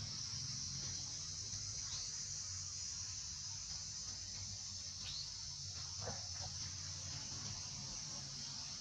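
Insects droning with a steady high-pitched buzz, with a few faint short chirps over it.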